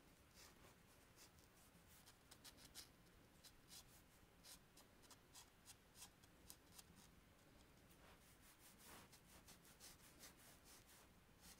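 Faint scratching of red chalk drawn across textured paper in quick, short strokes, several a second, with a few longer strokes near the end.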